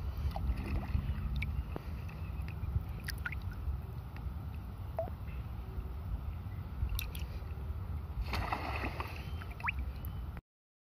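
Wind rumbling on the microphone over small waves lapping and sloshing in shallow sea water, with scattered small splashes and clicks. Near the end a short busier patch with a few brief rising whistles, then the sound cuts out for a moment.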